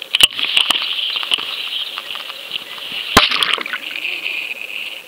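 Surf water churning around a submerged underwater camera: a steady fizzing hiss of bubbles and turbulence, with sharp knocks about a quarter second in and again about three seconds in.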